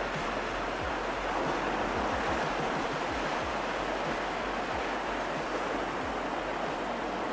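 Ocean surf: a steady rushing wash of waves rolling in, swelling slightly about two seconds in.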